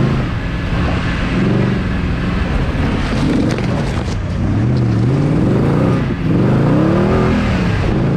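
Off-road competition vehicle's engine revving up and down over and over as it is driven hard across rough ground, heard from on board. About three to four seconds in there are a few sharp scrapes as it pushes through brush.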